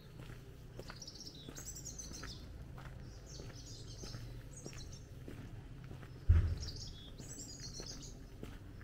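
Songbirds singing in short high phrases over a steady low background hum, with one sudden low thump a little after six seconds in.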